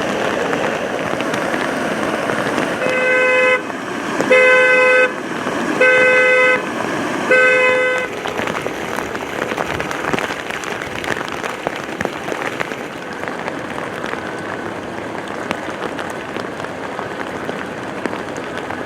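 Vehicle horn sounding four short blasts, each under a second and about a second and a half apart, over a steady rushing noise.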